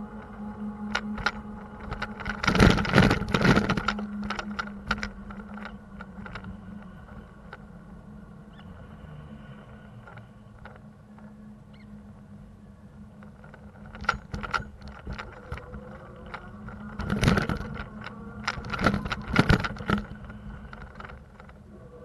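City street noise heard from a moving bicycle: a steady low engine hum under two loud bouts of rattling and clattering, one about three seconds in and another from about seventeen to twenty seconds, with scattered clicks in between.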